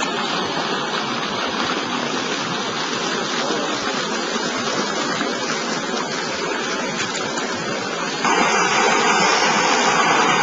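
Rushing water: a steady, even roar of flowing water. It jumps louder about eight seconds in.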